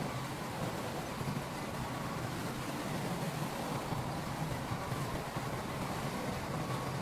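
Diesel engine of heavy earthmoving equipment running steadily, with no sudden knocks or changes in speed.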